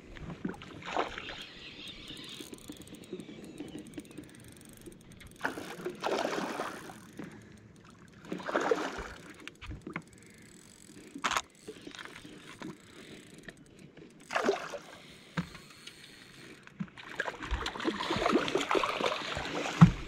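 Water sloshing and splashing around a small fishing boat, coming and going in irregular swells, with one sharp knock about eleven seconds in.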